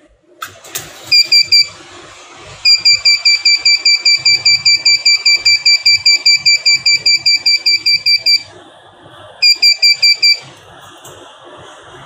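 Arduino flame-alarm buzzer beeping rapidly in a high tone, about five beeps a second: three beeps about a second in, a long run of several seconds, then five more near the end. It sounds while a flame is at the IR flame sensor, the alarm signalling fire detected.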